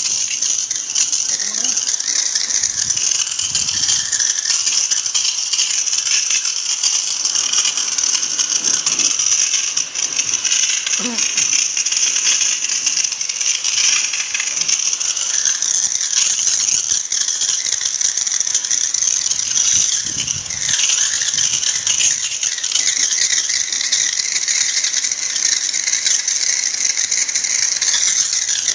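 High-pressure water jet hissing steadily as it sprays the coil fins of a window-type air conditioner during cleaning.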